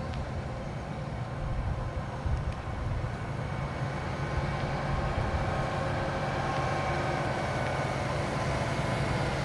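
Heavy-haul semi tractor's diesel engine pulling an oversize load at slow speed, a steady engine hum that grows gradually louder as the rig approaches, while the escort pickup rolls past close by.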